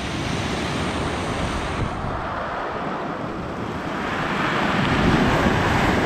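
Sea waves breaking and washing up a pebble beach, the surf swelling louder in the second half as a bigger wave breaks.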